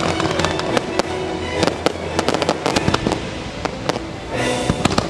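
Aerial fireworks going off in rapid succession, many sharp bangs and crackles, over loud show music. A hissing rush starts near the end.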